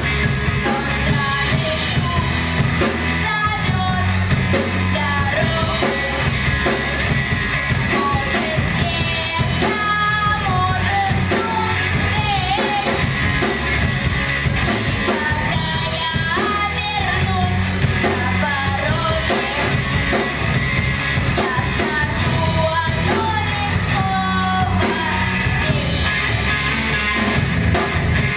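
A female vocalist singing a rock song over a band accompaniment of drums and guitar.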